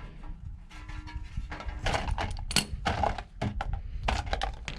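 Irregular light knocks and clicks of a truck's differential cover and its new gasket being handled and lined up, several sharper taps in the second half.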